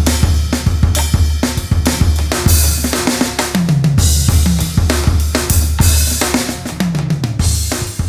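Electronic drum kit (Roland TD-50X playing a bop-style jazz kit sample pack) with added percussion, played as a dense groove of kick, snare, hi-hat and cymbal hits. Two fills of strokes falling in pitch come about a third of the way in and near the end, each landing on a cymbal crash.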